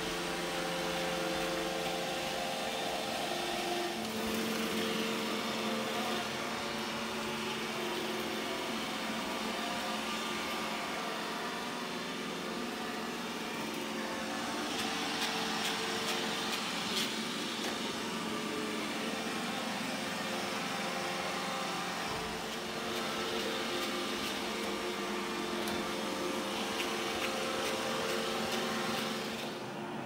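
iRobot Roomba e5 robot vacuum running across a hardwood floor: a steady whir and hiss from its suction fan and brush motors, with a few faint ticks. The hum's tone shifts slightly about four seconds in, and the hiss brightens briefly around the middle.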